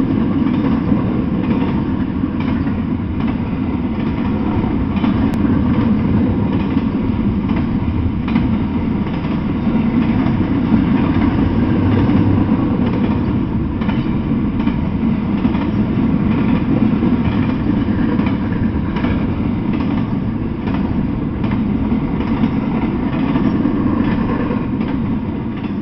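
Double-stack intermodal freight train rolling past close by: a steady loud rumble of well cars with the wheels clicking over the rail joints, starting to fade near the end as the train goes by.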